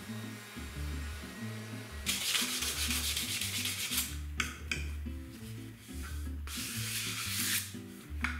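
Scratchy rubbing on a wooden surface in two stretches, one about two seconds in and one about six and a half seconds in, with a few short strokes in between, over light background music.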